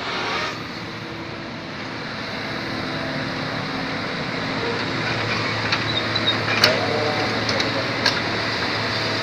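Excavator engine running steadily under work, with two sharp knocks in the second half.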